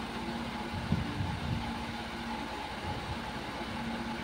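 A steady low background hum, with a few soft low knocks about a second in as hands press samosa pastry down onto a plate.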